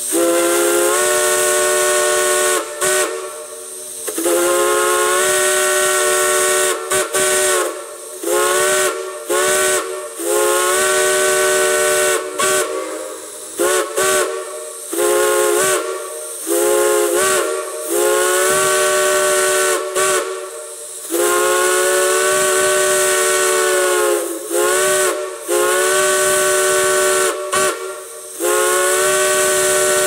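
Chime steam locomotive whistles on a steam manifold blowing a chord, sounded over and over in long blasts and quick toots, each blast sliding in pitch as its valve opens and closes, with a steady steam hiss.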